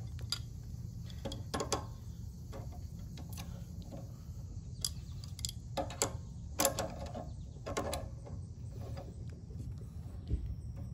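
Adjustable wrench clicking and clinking on the pump's mounting bolts as they are turned a little at a time, in irregular sharp clicks, the strongest about five to seven seconds in, over a low steady hum.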